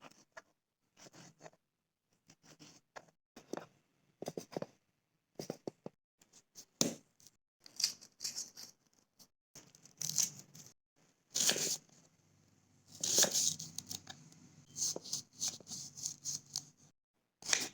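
Small knife cutting vegetables on a miniature chopping board: irregular short, crisp slicing strokes with pauses between them, and a few longer scraping cuts.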